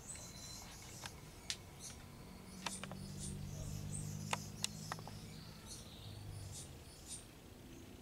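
Faint handling noise: light rustling and scattered small clicks, with a low hum that comes in about two seconds in and fades out past the six-second mark.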